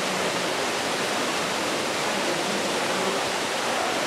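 A steady, even rushing noise, like running water.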